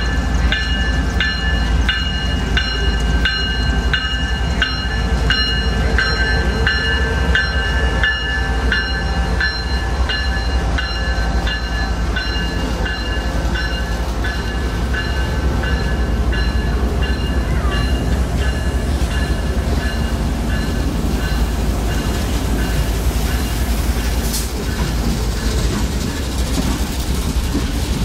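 CSX freight train passing at close range: diesel locomotives rumbling by, then empty flatcars rolling over the rails. A bell rings in steady strokes, about two a second, and fades out about halfway through.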